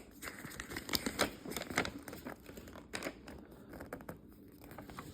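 Paper rustling and crinkling as a toy's instruction manual is handled, an irregular run of short rustles and small clicks.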